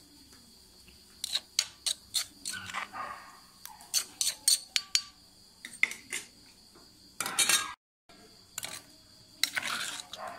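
A metal spoon clinking and scraping against an earthenware mortar as chili paste is scooped out: a run of sharp taps, then longer scrapes. Crickets chirp steadily in the background.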